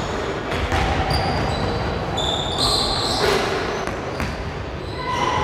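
Basketballs bouncing irregularly on a gym floor, several thuds a few seconds apart.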